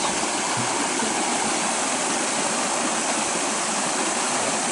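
Shallow creek water running over small rocky rapids: a steady, even rushing.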